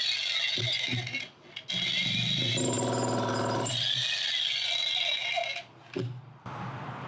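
Inexpensive electric jackhammer running and hammering into a concrete slab, a rapid, even buzz of blows under a high motor whine. It cuts out briefly about a second in and twice in quick succession near the end as the trigger is released and pressed again.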